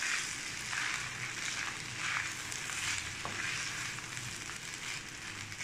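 Wooden spatula stirring and scraping cooked rice and curry leaf powder in a hot non-stick kadai, over a steady sizzling hiss, with soft strokes about once a second.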